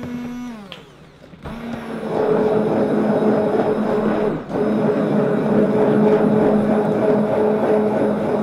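Stainless stick blender running in thick hot process soap batter, a steady motor whine. It spins down just under a second in, starts again with a rising whine about a second and a half in, and runs on with a short break about four and a half seconds in.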